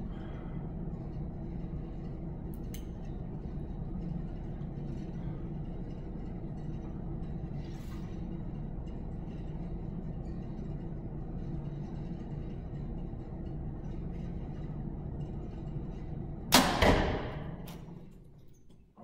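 A 2014 PSE Dominator compound bow being shot: a sudden loud crack of release and string about three-quarters of the way through, a second knock about half a second later, then fading out. A steady low hum underlies the wait before the shot.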